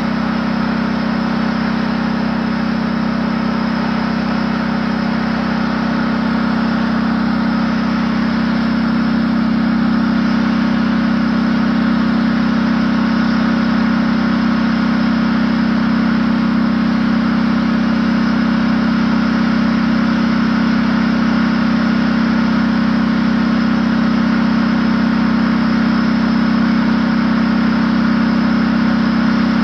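Tank's diesel engine running steadily, getting a little louder about eight seconds in and holding there.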